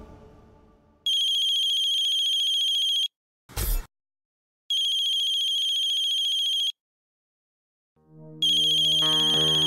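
Mobile phone ringing with an old-style trilling ring tone: three rings of about two seconds each, with pauses of one and a half to two seconds between them. A brief burst of noise falls between the first two rings, and soft background music comes in near the end.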